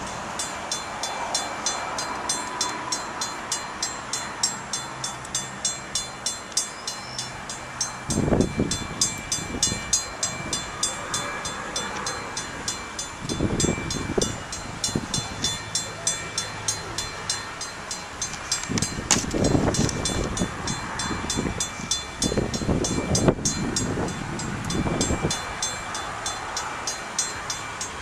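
Railroad crossing warning bell ringing in rapid, even strokes while the gates are down and the lights flash. Deep rumbles swell and fade several times over it.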